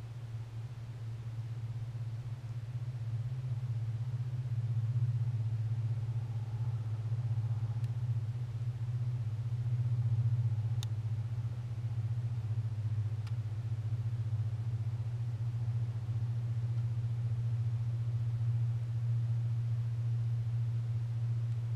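A steady low hum with no change in pitch, over faint hiss, with three faint ticks around the middle.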